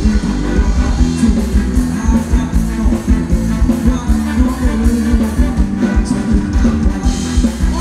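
Thai ramwong dance music played by a live band, with a steady beat and a strong bass line.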